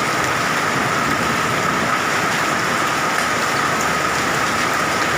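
Hailstones and heavy rain hitting a roof: a loud, dense, unbroken patter of impacts.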